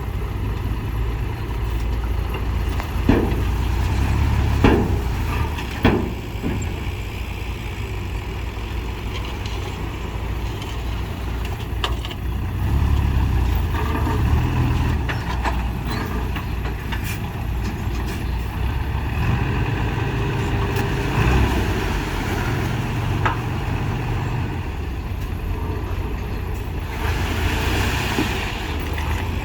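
Diesel engine of heavy earthmoving machinery running steadily, with a few sharp metallic knocks in the first several seconds.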